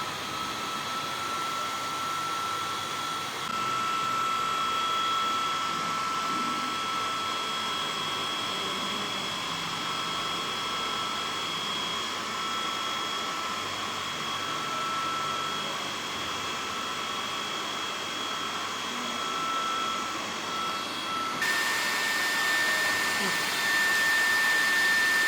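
Electric hair dryer running steadily, blowing to dry the wet water sensor so the switch restores the current. About 21 seconds in its whine steps up to a higher pitch and it gets louder.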